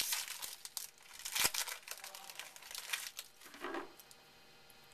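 Plastic card-pack wrapper crinkling and tearing as a trading-card pack is ripped open and handled, in quick crackles with one louder rip about a second and a half in; it stops about three and a half seconds in.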